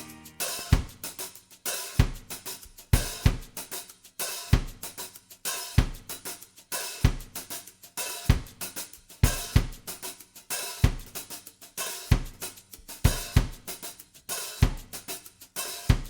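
Drum kit playing a steady beat, with kick drum, snare and cymbals, as background music.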